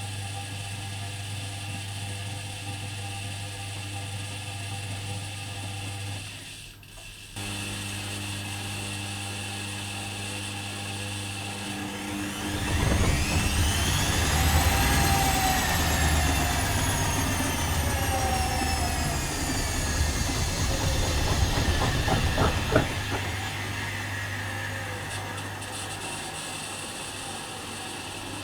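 Privileg Dynamic 4612 washing machine with its drain pump humming steadily, the hum cutting out briefly about seven seconds in. About twelve seconds in the drum motor starts up with a rumble and a rising whine, peaks a few seconds later, then slowly winds down with a falling whine: a short spin during draining.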